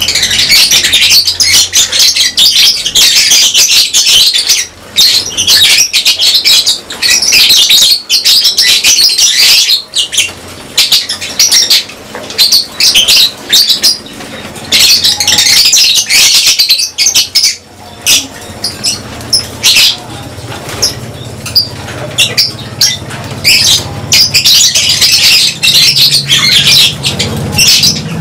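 Lovebirds in a colony chattering and calling continuously in dense, high-pitched chirps, ebbing and swelling, with wing flutters among them.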